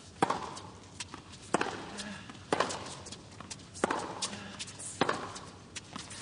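Tennis ball struck back and forth with racquets in a baseline rally: five sharp pops about every 1.3 seconds.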